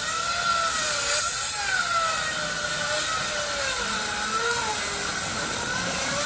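A motor running with a steady whine that slowly wavers up and down in pitch, over a constant hiss.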